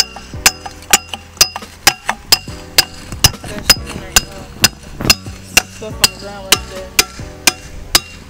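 Metal bar rammed again and again down into a catalytic converter to break out its honeycomb core: about eighteen sharp, ringing metallic strikes, evenly spaced at roughly two a second.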